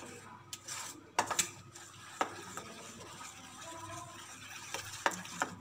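A metal spoon stirring thin malpua batter in a steel bowl: a soft, steady scraping with several sharp clinks of the spoon against the bowl.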